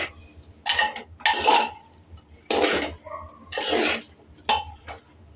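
Steel spoon stirring wet chopped brinjal in an aluminium pressure cooker, scraping against the pot in about five separate strokes.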